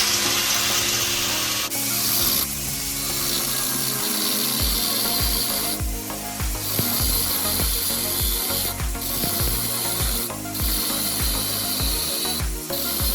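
HiKOKI G10SS2 4-inch angle grinder cutting, a loud steady grinding hiss that drops away briefly a few times as the disc eases off the work. A low, steady beat of background music runs beneath from about four seconds in.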